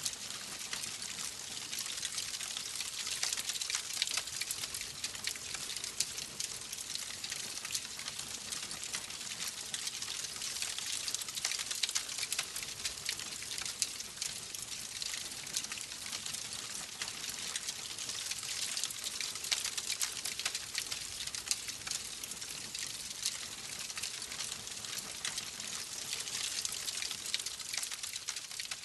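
Wood fire burning with a steady hiss and constant small crackles and pops.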